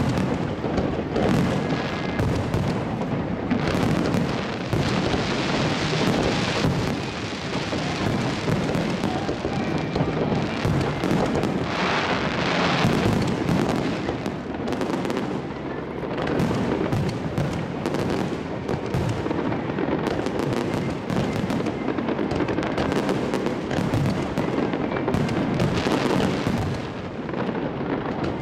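Aerial fireworks shells bursting in a dense, unbroken barrage at close range, bangs and crackling overlapping one another.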